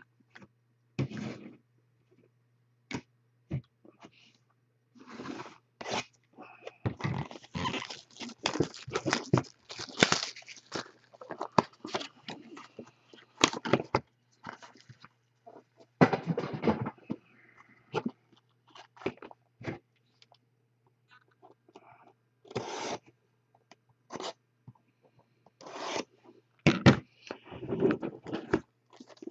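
Hands sliding, setting down and handling cardboard trading-card boxes and foil-wrapped packs on a table: irregular scrapes, light knocks and crinkles, with a faint steady low hum underneath.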